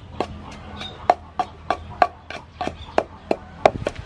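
Wooden pestle pounding chili paste in a wooden mortar: a steady rhythm of knocks, about three a second.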